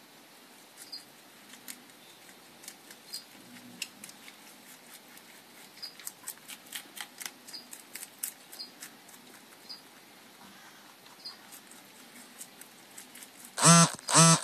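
Pet rabbit chewing salad leaves: a run of quick, crisp crunching clicks. Near the end come two short, loud pitched sounds about half a second apart.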